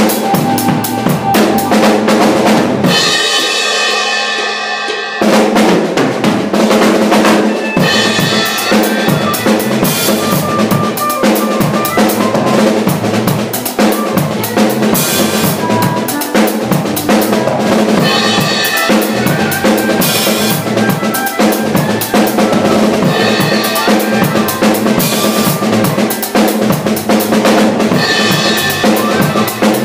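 Acoustic drum kit played in a busy groove of kick drum, snare and cymbals, with a brief break in the beat about three seconds in.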